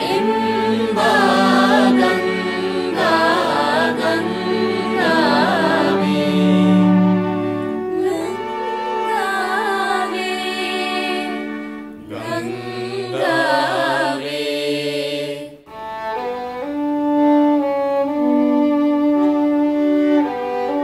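Mixed choir singing a melody over a string ensemble of violins, viola, cello and double bass. About fifteen seconds in, the voices stop and the strings carry on alone with long bowed notes.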